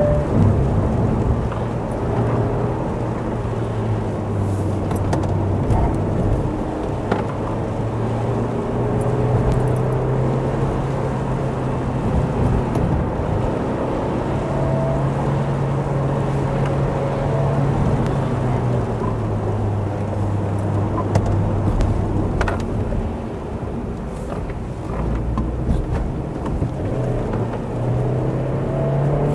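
Car engine running at road speed, its note rising and falling with the revs, over tyre noise on a wet road.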